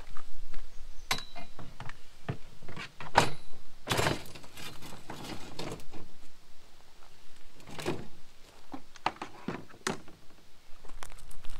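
Folding table with a plastic top and metal legs being unfolded and set upright: a string of clanks, clicks and knocks as the legs swing out and lock, with a longer rattle about four seconds in.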